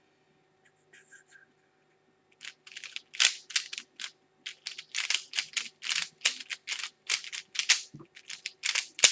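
3x3 Rubik's cube being turned fast, its plastic layers clicking and clacking several times a second, starting about two and a half seconds in after a near-silent pause.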